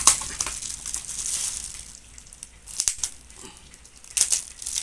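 Crinkling and rustling of packaging being handled, with a sharp click about three seconds in and a louder rustle near the end.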